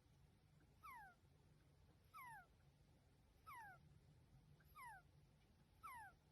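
Hedgehog's breathing through a nose blocked by a cold, squeaking with each breath: five short, falling whistles, about one every second and a quarter.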